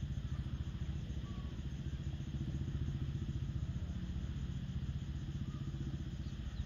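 An engine running steadily at low speed, a low rumble with a fast, even pulse, with faint bird chirps now and then.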